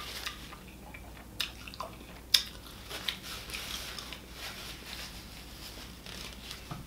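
Paper napkin rustling and crinkling as it is folded in the hands, with scattered light clicks and one sharper click a little over two seconds in.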